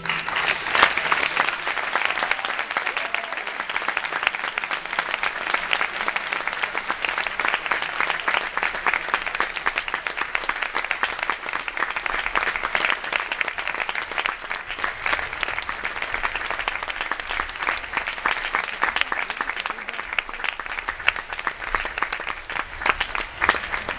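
Audience applauding: many hands clapping together in a dense, steady ovation.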